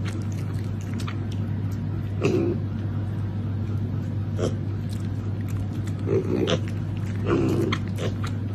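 Pigs grunting: about five short grunts spread through, over a steady low hum.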